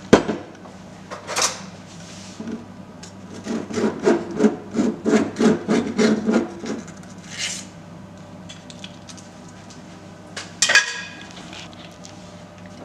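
A utensil scraping and knocking inside a glass jar of Nutella chocolate spread: a couple of knocks, then a run of quick rhythmic scraping strokes over a few seconds, and one more knock near the end.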